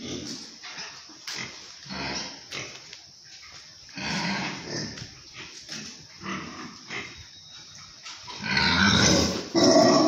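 A pen full of pigs grunting and squealing in irregular, overlapping calls, with a louder, shriller stretch of squeals near the end.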